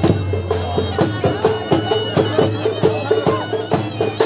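Traditional folk music: a shrill wind instrument playing a wavering melody over a quick, even drum beat.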